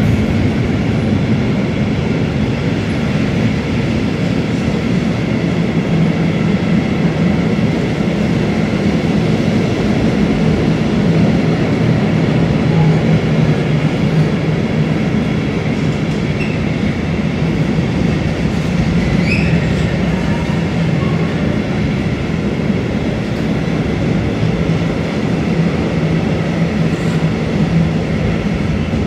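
Freight train of covered box wagons passing close by: a steady, loud rumble of steel wheels on the rails, with a brief high squeak about two-thirds of the way through.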